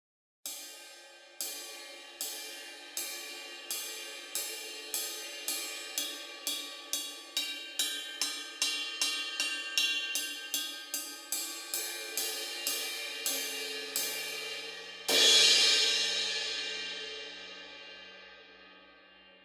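18-inch SABIAN HHX suspended cymbal struck repeatedly with a drumstick: strokes on the bow that quicken and then slow, a change to a different ringing tone on the cup near the middle, then one loud edge crash about three-quarters of the way in that rings and slowly dies away.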